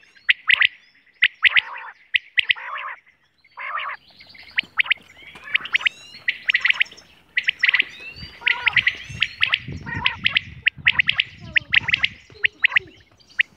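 Quails calling: many short, sharp call notes repeated in quick runs, several birds overlapping, with a brief lull about three seconds in and denser calling from about eight seconds on.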